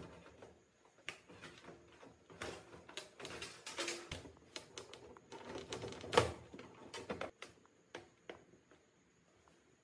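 A busy run of clicks, taps and scrapes of small hard parts being handled, with one louder sharp knock a little after six seconds. After about seven seconds only a few faint ticks remain.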